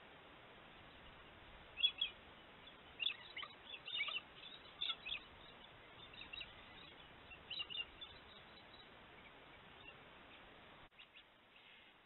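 Galahs calling: short, sharp, high-pitched screeches in quick clusters from about two seconds in until about eight seconds, over a steady hiss that drops near the end.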